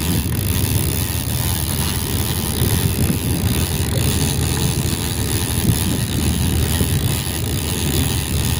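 Fishing boat's engine running steadily under way: a continuous low rumble with an even hiss above it.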